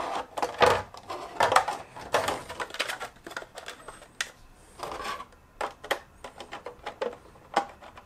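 Hollow 3D-printed PLA plastic fuselage sections being handled and pushed together: irregular clicks, taps and short scrapes of thin plastic against plastic.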